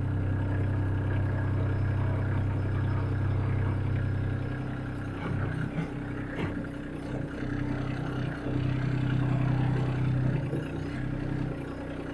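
Kubota LX2610 compact tractor's three-cylinder diesel engine running while the front loader works. The engine note drops about four seconds in and swells again a few seconds later, with a faint knock in between.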